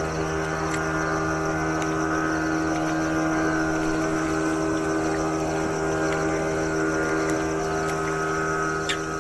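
An engine running steadily at a constant speed, a even, unchanging hum. A couple of sharp clicks near the end.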